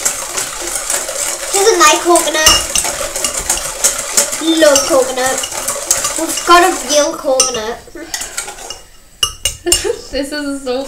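A utensil beating egg whites for meringue in a stainless steel bowl: rapid clinking and scraping against the metal. The beating is dense for about seven seconds, then turns quieter and sparser with a few scrapes near the end.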